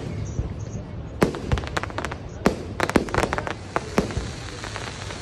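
Aerial fireworks going off: a quick string of sharp bangs and crackles, densest from about a second to four seconds in, over a steady low rumble.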